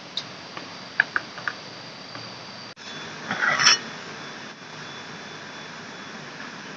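A few light clicks and taps as dishes and a leaf are set down on stones, then, after a cut, a short scraping rattle at a metal cooking pot hanging over a campfire, over a steady hiss.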